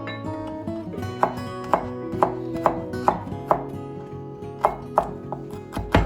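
A knife chopping on a cutting board in slow, uneven strokes, about two a second, over background music.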